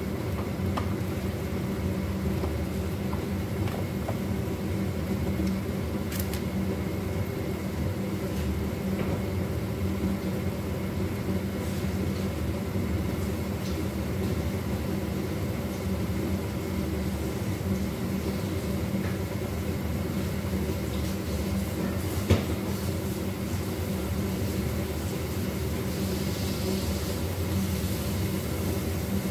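Kitchen range hood extractor fan running with a steady low hum over the lit gas hob. A single sharp click comes about three quarters of the way through.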